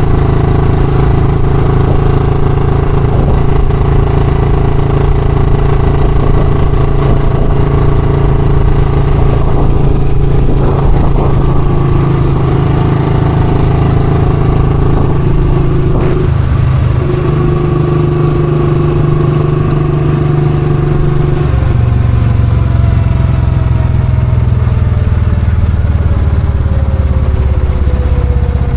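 Royal Enfield Classic motorcycle engine running steadily. Its note changes in steps about two-thirds of the way through, and toward the end a slowly falling pitch can be heard.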